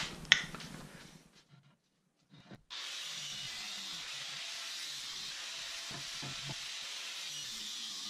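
A knock just after the start, then from about three seconds in an angle grinder cutting into an old VW Beetle transmission case: a steady, even hissing grind.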